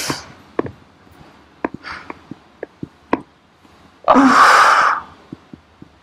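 A woman lets out a long, loud sighing exhale about four seconds in while her neck is held and stretched. A softer breath comes near two seconds, and faint short clicks are scattered throughout.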